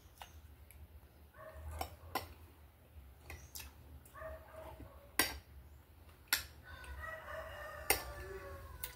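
A metal spoon clinks and scrapes against a plate a few times while someone eats. A rooster crows faintly in the background: short calls early on, and one longer crow of about two seconds near the end.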